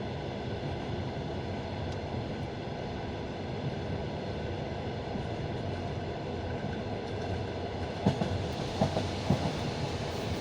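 Passenger train running along the rails with a steady rolling rumble heard from inside the carriage. Near the end come a few sharp clacks of the wheels striking the track.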